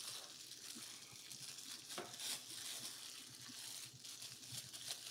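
Clear plastic bag crinkling faintly as hands handle and open it around a bundle of charger cables, with a few louder crackles about two seconds in.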